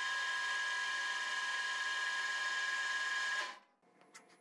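Metal lathe running with its chuck spinning, a steady high whine with two clear tones over a hiss. It cuts off suddenly about three and a half seconds in, and a few faint clicks follow.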